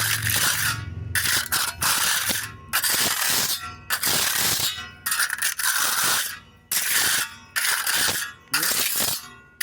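A wet sponge being rubbed over a freshly patched concrete corner, making gritty scratching strokes about once a second, about nine in all, as it works the sand and stone out of the surface.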